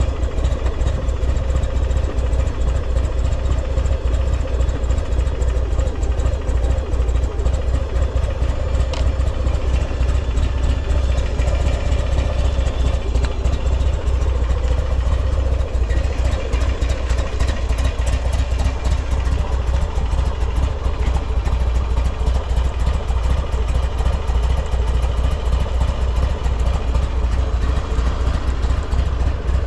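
Buell XB9S Lightning's air-cooled V-twin idling steadily with an even low rumble. The seller calls it free of abnormal noise.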